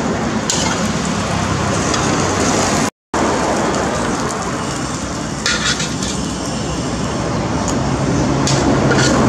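Omelet frying in oil in a pan, a steady sizzle with occasional crackles. The sound cuts out for a moment about three seconds in.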